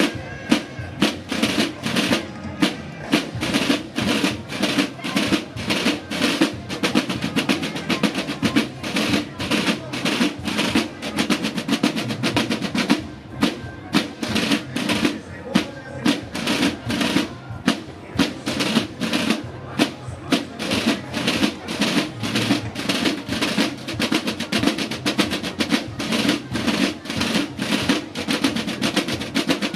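Drums, snare drum among them, played in a steady, driving rhythm of about three strokes a second with rolls.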